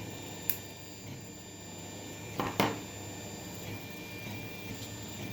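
Tevo Tornado 3D printer running during a print: a faint steady hum with thin high whining tones. A sharp click comes about half a second in, and a couple of short handling noises about two and a half seconds in.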